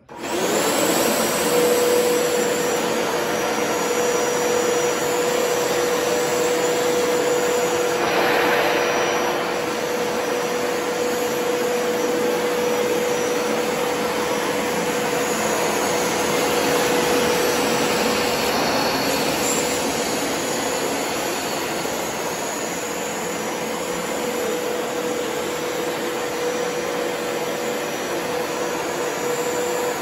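Hoover TurboScrub carpet washer switching on and running steadily while it shampoos a rug, its motor holding one steady tone over the suction noise.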